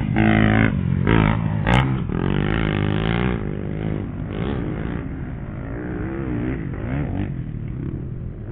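Dirt bike engine heard up close from onboard, revving up and down as the rider works the throttle around the track. It is loudest in the first few seconds and runs at lower revs after about four seconds in.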